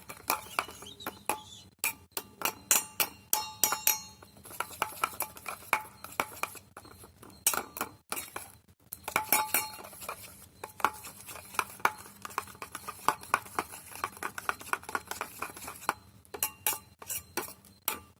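A utensil beating raw egg with chopped onion, green chillies and spices in a bowl: quick runs of clinks against the bowl, several a second, broken by short pauses.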